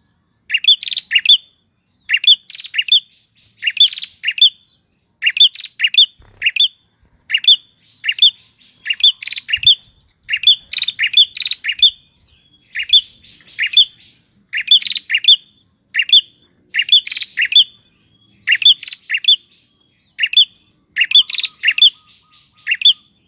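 Male prinia (prenjak tamu) singing vigorously: short bursts of two to four loud, sharp chirps, repeated about once a second without pause.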